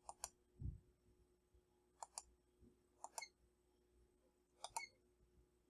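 Faint computer mouse clicks: four quick double clicks spread over about five seconds, with a soft low thump just after the first pair.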